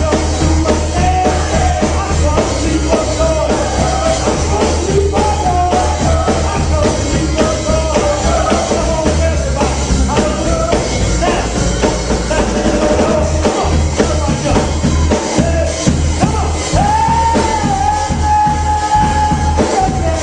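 Church praise band playing live, with singing over drums and a heavy bass. A singer holds one long note near the end.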